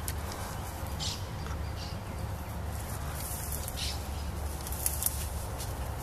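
Wind rumbling on the microphone outdoors, with short rustles and scuffs of footsteps moving through dry grass.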